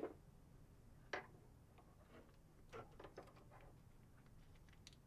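Faint clicks and light taps of small steel parts being handled on a milling-machine vise: a 1-2-3 block, a keyway broach and a small flywheel hub with its plug. A few scattered clicks, the clearest about a second in, then a quick run of them around three seconds in.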